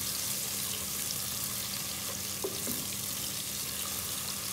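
Onions, tomatoes and green chillies sizzling steadily in hot ghee in a metal pot as a wooden spoon stirs them, with a couple of light knocks of the spoon against the pot near the middle. A steady low hum runs underneath.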